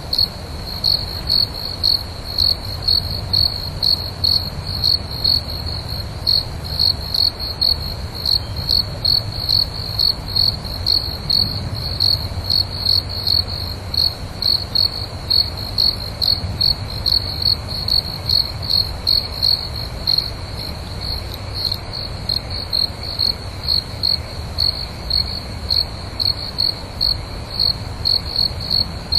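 Crickets chirping at night: a steady, even train of high-pitched chirps, about two to three a second, over a faint low rumble.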